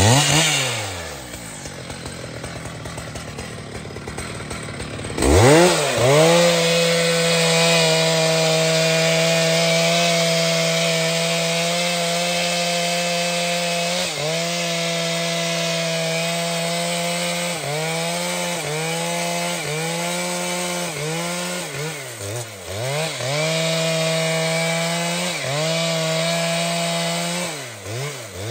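Large professional two-stroke chainsaw dropping back from full throttle, then revving up about five seconds in and running at a high steady pitch through a cut in trembesi wood. In the later part its pitch dips and recovers several times as the chain is loaded. It lets off near the end.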